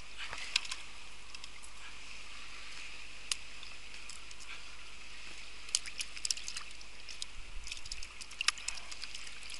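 Scattered clicks, ticks and light rattles from a cast net and a plastic bucket being handled, as a small fish is taken from the net and dropped in among other fish. A steady high hiss runs underneath, and the clicks come in clusters through the second half.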